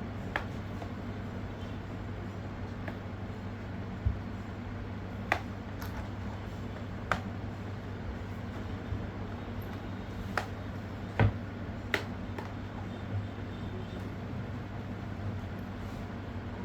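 Scattered sharp clicks and taps of a small screwdriver and tiny case screws being worked loose and handled, about ten at uneven intervals, the loudest about eleven seconds in, over a steady low hum.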